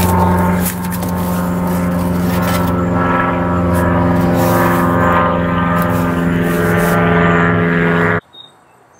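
A motor running with a steady low hum and strong overtones, cutting off abruptly near the end.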